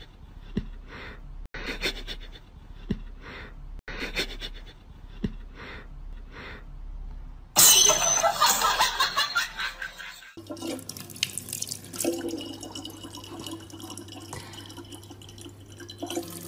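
Water running and splashing, as at a tap or sink, across several short clips. The loudest part is a burst of splashing from about eight to ten seconds in, followed by a steady low hum.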